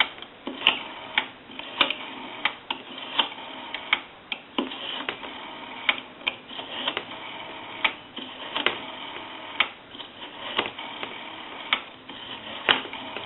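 Rotary dial of a Western Electric single-slot payphone being worked through its digits: a run of sharp clicks, roughly one to two a second, over a faint steady line hum.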